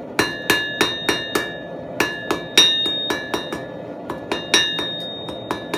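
Hand hammer striking red-hot 3/8-inch square steel bar on an anvil, forging it in runs of about three blows a second with a short pause about a second and a half in. The anvil rings after each blow. The pauses are for resetting the tongs, because the sway-backed anvil face could flip the work up.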